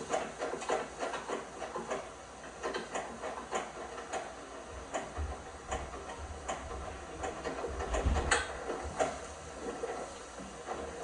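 LG washing machine running a load of pajamas: the drum tumbling, with irregular soft knocks and sloshing and a low rumble in the middle.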